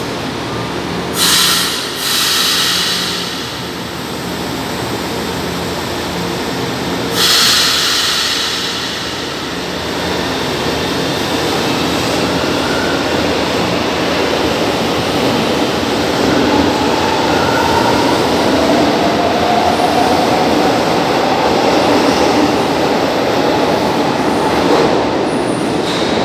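São Paulo Metro trains in an underground station: two short hisses of air about a second in and about seven seconds in, then a train running along the platform with rising wheel-on-rail noise and the changing whine of its traction motors.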